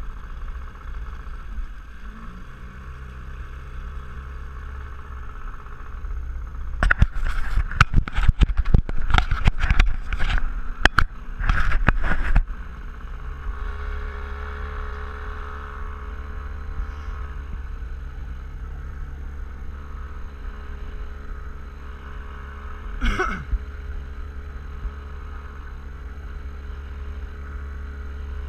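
Small boat's outboard motor running steadily under way, with wind and water noise. From about seven to twelve seconds in, a run of loud, irregular slaps and knocks, and one more near the end.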